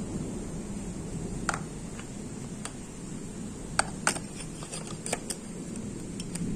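Scattered light clicks and taps, about eight over a few seconds, from a phone being handled with its lens covered, over a steady low rumble.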